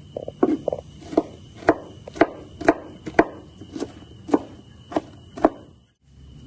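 A steady series of knocks, about two a second, about a dozen in all, ending abruptly near the end.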